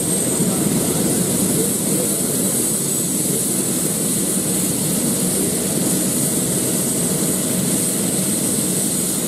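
Twin-turbine Airbus H145 police helicopter running on the ground with its rotor turning: a steady rush of rotor noise under a high, even turbine whine.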